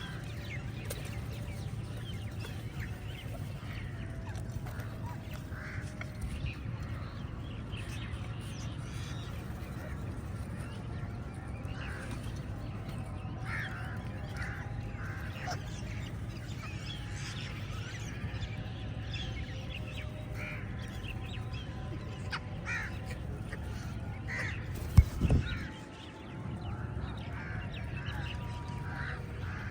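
Many crows cawing, calls overlapping and scattered, over a steady low rumble, with one sharp loud thump about 25 seconds in.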